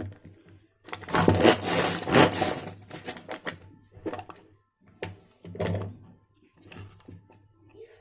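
Ganesh Quick Chopper, a manual pull-cord chopper, being pulled to chop onion: plastic rattling and blades spinning in the bowl. The loudest, longest stretch comes about a second in, followed by several shorter bursts.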